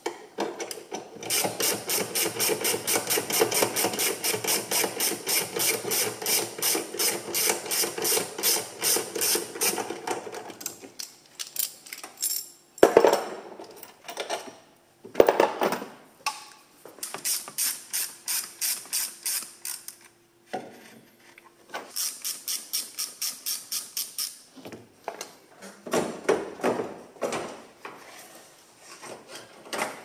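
Hand ratchet wrench clicking in quick, even runs as bolts on the intercooler's mounting bracket are turned out, with two sharp metal knocks in the middle.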